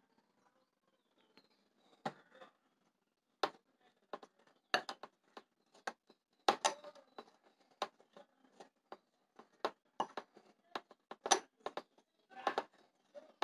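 Steel spoon clinking and scraping against a glass bowl in irregular strokes while stirring flour and white glue into a stiff dough for homemade air-dry clay. It starts about two seconds in.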